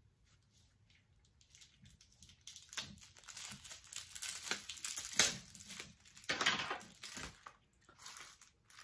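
Plastic bubble wrap crinkling and crackling in irregular bursts as it is handled and a wand is pulled out of it. The crinkling starts about two seconds in and is loudest in the middle.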